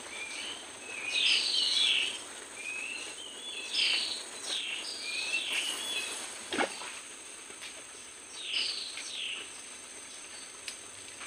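Wild birds calling: a short whistled phrase of quick sweeping notes, repeated every second or so. Under it runs a steady high insect buzz, and there is a single sharp click about six and a half seconds in.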